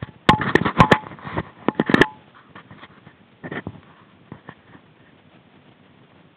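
A Czechoslovakian wolfdog sniffing and snuffling right at the microphone, with fur brushing it. There is a quick run of loud puffs and knocks over the first two seconds, then a few fainter sniffs.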